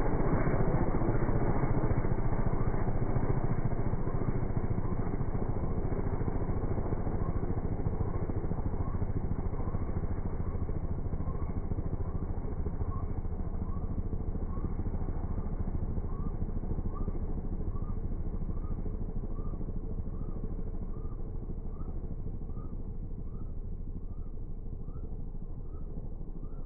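Gyroplane's engine and pusher propeller running steadily as the aircraft climbs away, the drone slowly fading with distance. Faint short chirps repeat about once a second through the second half.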